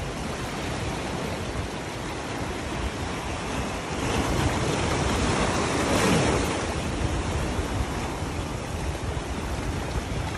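Sea waves washing and breaking against shoreline rocks, a steady surf noise. A bigger surge swells about four seconds in, peaks around six seconds, then eases off.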